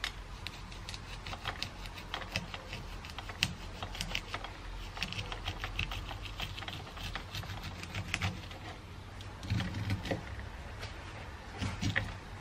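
Kitchen knife slicing kernels off a corn cob stood on end on a wooden cutting board: a fast, irregular run of small clicks and crackles as the kernels snap off and patter onto the board, with a few duller knocks in the last few seconds.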